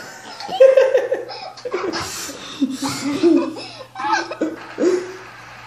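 Boys laughing and giggling in short broken bursts, fading toward the end, over a faint steady low hum.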